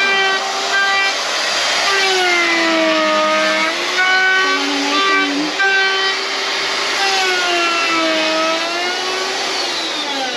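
A man's voice singing long, drawn-out melodic phrases, holding notes and sliding slowly up and down, with a steep falling glide near the end.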